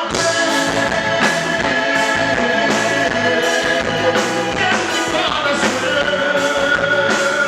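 Band music, an instrumental passage: long held lead notes that slide in pitch now and then, over drums and bass.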